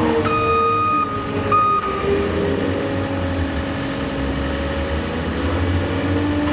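A heavy vehicle's engine running with a steady low hum, and a reversing alarm giving two high beeps near the start.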